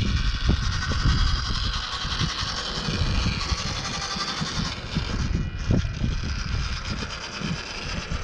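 WPL 1/16-scale RC crawler pickup's small electric motor and gearbox whining steadily as it crawls over rock, with scattered knocks of the tyres and chassis on the stone.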